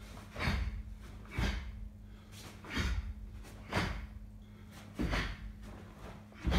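Six short, sharp bursts about a second apart as a karate kata (Heian Nidan) is performed, one with each technique. Each burst is a forceful exhalation together with the snap of the karate gi.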